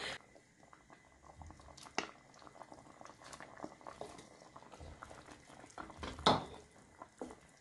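Thick stew gravy bubbling at a boil in a pot, with scattered small pops and light clicks as a bowl and a wooden spoon work against the pot. A sharp click about two seconds in, and a louder knock about six seconds in.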